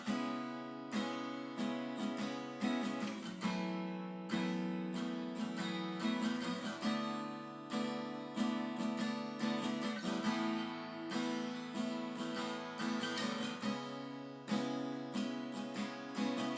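Crafter Grand Mino ALK acoustic guitar being strummed, chords struck in a steady rhythm with the strings ringing between strokes.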